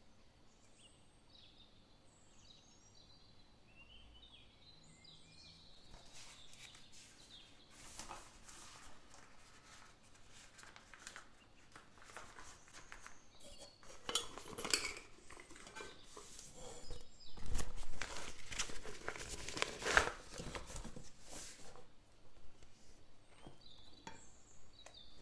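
Silicone spatula scooping whipped cream from a glass bowl into a piping bag: soft scrapes, taps against the bowl and rustling of the bag, loudest in the second half.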